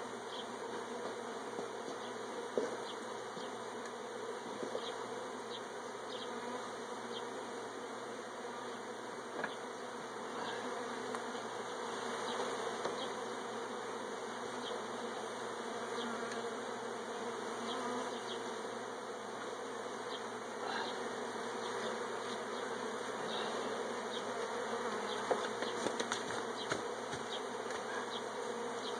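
A crowd of honeybees buzzing in a steady drone around opened hive frames and cut honeycomb, a colony smoked and stirred up during a honey harvest. Light ticks come now and then.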